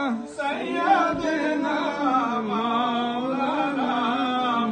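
Male voices chanting a melodic Islamic devotional recitation at a milad gathering, in long sustained phrases.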